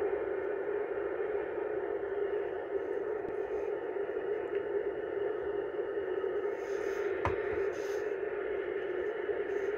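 R160A New York City subway train running through the station at express speed without stopping: a steady roar of steel wheels on the rails, with one sharp click about seven seconds in.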